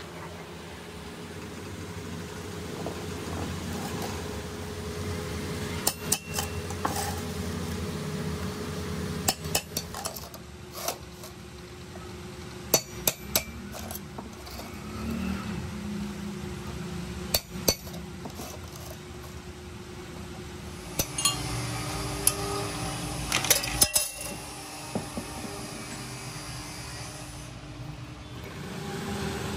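Scattered sharp metal clinks and taps of hand tools on a steel tractor clutch plate, most frequent a little before the end, over a steady low hum.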